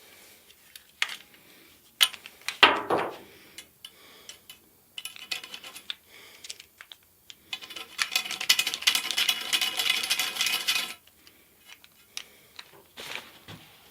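Metal electrical conduit being handled and cut: a few sharp metallic clanks in the first few seconds, then, about eight seconds in, some three seconds of fast, even cutting strokes.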